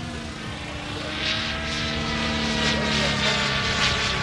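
Electric RC speed helicopter (Suzi SS 16s, 700 size, on a 16-cell battery) in flight: a steady whine with rushing, pulsing rotor noise that grows louder about a second in.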